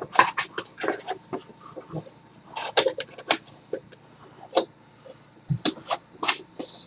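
Handling noise: an irregular string of short clicks, taps and brief scrapes as a box is picked up and handled.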